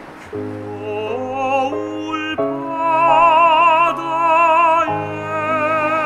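Tenor singing a Korean art song in a classical voice over steady accompaniment: the line climbs in steps, then holds a long note with wide vibrato for a couple of seconds in the middle before moving on.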